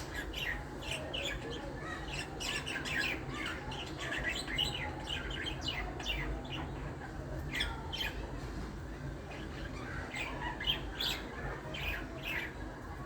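Birds chirping: many short, quick calls one after another, over a steady low background rumble.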